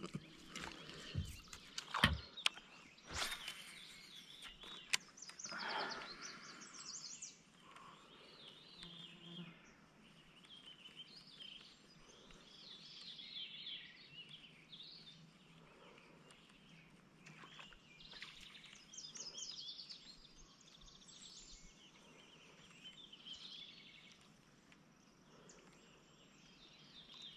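Faint wild birdsong: many short, high chirps and twittering calls, some sliding in pitch, with a few sharp knocks in the first few seconds.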